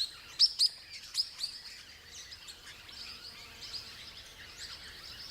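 A flock of swift parrots giving high, squeaky contact chirps: a few loud, sharp calls in the first second and a half, then many softer overlapping chirps.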